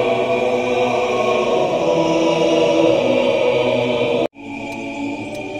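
Choir singing a slow piece in long held notes. About four seconds in the sound cuts out abruptly and comes back quieter.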